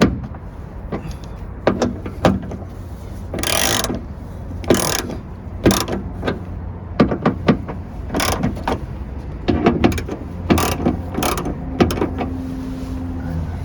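Ratchet wrench with a 10 mm socket tightening the fastenings of a rear wiper motor: irregular clicks, with two longer rasping runs of ratcheting about three and a half and five seconds in.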